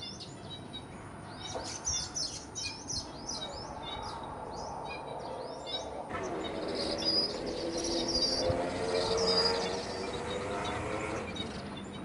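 Weaver birds chirping in quick, dense series of short high notes, then a few higher whistled notes. From about six seconds in, a low droning hum swells and fades under the birds.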